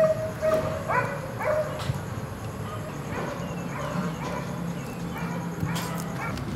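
A dog yipping: a few short, sharply rising yelps in the first two seconds, then fainter chirps.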